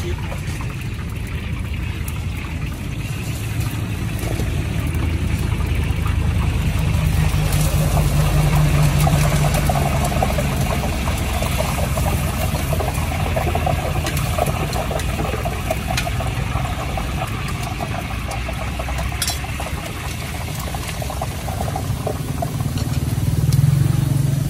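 Street traffic: motor vehicle engines running nearby, swelling twice as vehicles go by.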